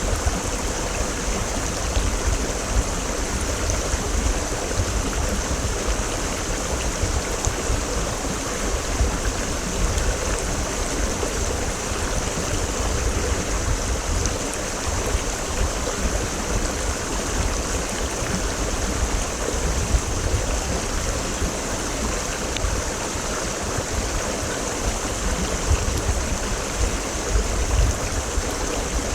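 Creek water flowing steadily, an even, continuous rush of water.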